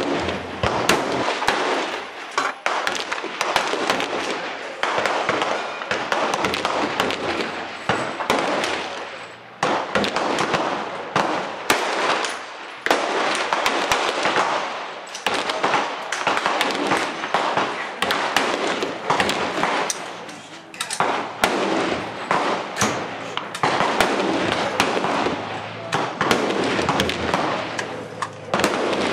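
Rapid gunfire from rifles, many shots coming close together and overlapping, each report followed by an echoing tail.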